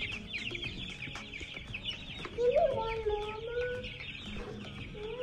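A flock of young broiler chickens peeping continuously in rapid high chirps, with a louder drawn-out voice-like sound about two and a half seconds in.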